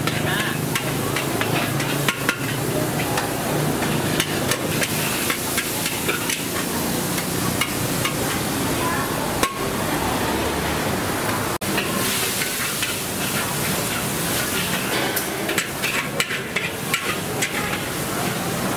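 Street-food stall cooking: repeated sharp metal clanks and knocks over a steady hiss of frying.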